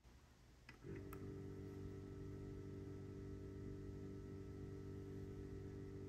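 Engel rechargeable electromagnetic live-bait aerator pump switched on with a couple of clicks, then running with a steady low hum from about a second in.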